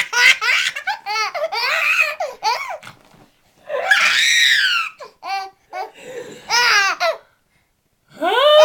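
A baby laughing in repeated high-pitched bursts at an adult's pretend sneezes, with short pauses between bouts.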